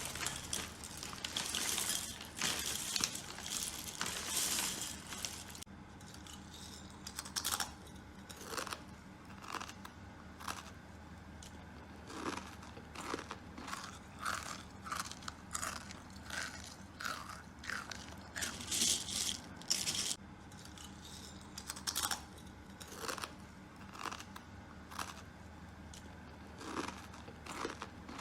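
Crunching: about five seconds of dense crackling, then short separate crunches about one a second, with another brief dense crackle partway through.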